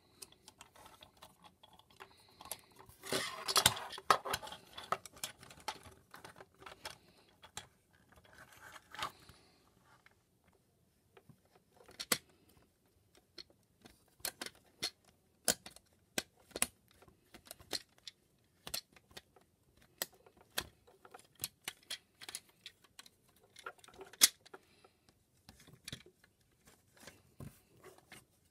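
Plastic parts of a Transformers Siege Ultra Magnus action figure clicking and rattling as they are handled and folded into place. A burst of clattering comes about three seconds in, then scattered sharp clicks.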